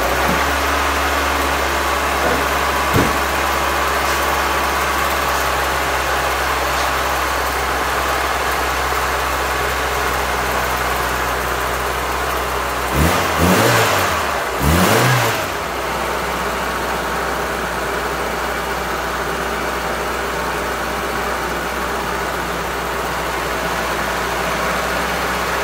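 1983 Toyota Tercel's four-cylinder engine idling steadily, just started and run with the radiator cap off to burp air out of the freshly refilled cooling system. About halfway through it is revved up briefly twice, then settles back to idle.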